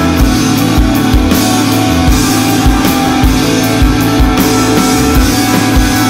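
Rock music with a steady drum beat, no singing.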